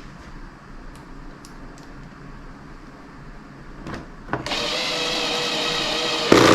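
Power drill/driver set to its lowest torque setting, driving a trunk-lid screw. Its motor runs steadily for about two seconds from just past the middle, then ends in a brief louder burst.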